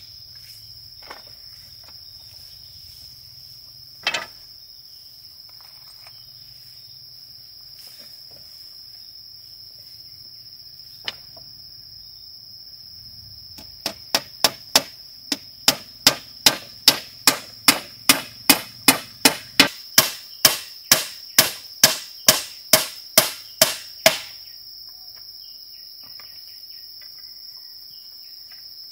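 Hard blows of a tool striking: a few single strikes, then about halfway through a quick run of about two dozen blows, two or three a second, lasting about ten seconds. Under them, insects drone steadily in a high pitch.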